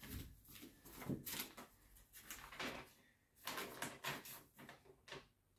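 Faint rustles and small taps of paper as a printed instruction booklet is handled and leafed through, heard as a string of short, separate sounds.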